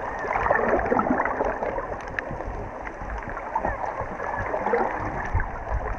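Muffled underwater water noise, a steady rushing and gurgling, heard from a camera held below the surface, with many scattered sharp clicks. It is loudest in the first second or so.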